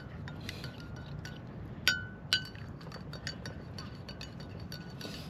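A spoon stirring coffee in a cup, clinking against the side: a run of light ticks with two louder, ringing clinks about two seconds in.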